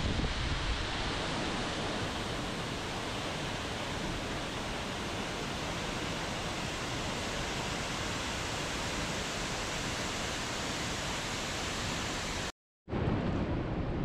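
Large waterfall pouring down a rock face: a steady, even rush of falling water. Near the end it cuts out for a moment, and a different water sound with less hiss takes over.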